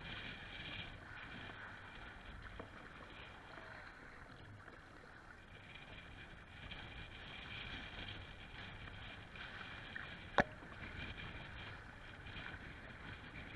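Kayak being paddled through choppy lake water: steady washing and splashing of waves and paddle strokes along the hull, swelling and easing every second or two. A single sharp knock about ten seconds in.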